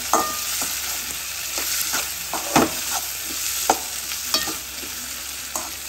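Sliced shallots and tomatoes sizzling in hot oil in an aluminium pan while a metal spatula stirs them, scraping and knocking against the pan at irregular moments. The knocks are sharpest a little past halfway.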